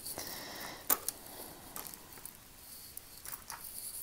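Faint rustling of a plastic bag and light clicks of metal costume jewelry being handled, with one sharper click about a second in.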